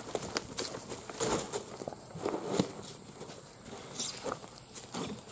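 Running footsteps crunching on dry leaf litter, uneven and irregular, with a few louder steps along the way.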